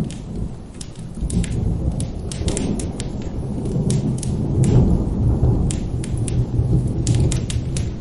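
Thunder rolling in a long low rumble over steady rain, swelling about halfway through and easing toward the end, with frequent sharp crackles from a wood fire on top.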